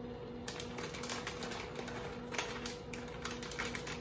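Plastic bag of shredded cheese crinkling and crackling as it is shaken and squeezed to sprinkle the cheese, a run of irregular crackles from about half a second in. A faint steady hum lies underneath.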